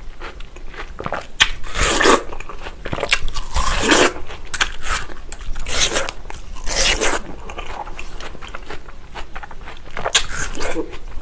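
Close-miked bites into crisp, juicy watermelon flesh, with crunching and wet chewing. The loudest bites come about two, four and seven seconds in, and another near the end.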